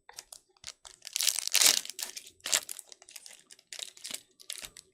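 Foil wrapper of a trading-card pack being torn open and crinkled, a run of irregular rustling and tearing bursts, loudest about a second and a half in.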